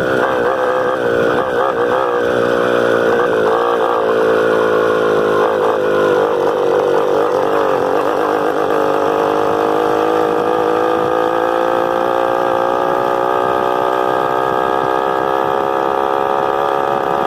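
Honda CG 125 single-cylinder motorcycle engine running, its pitch wavering through the first half, then holding steady and rising slowly.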